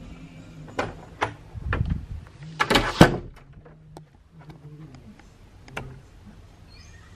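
A hotel room door being handled and shut: sharp clicks and knocks, the loudest about three seconds in, then a couple of lighter clicks later on.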